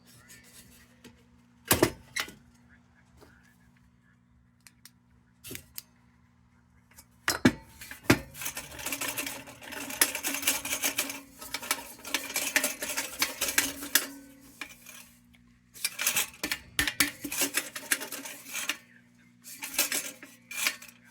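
Metal parts of a kerosene heater being handled and scrubbed: a few sharp metallic clinks, then long stretches of scraping and scrubbing starting about eight seconds in and again from about sixteen seconds, over a low steady hum.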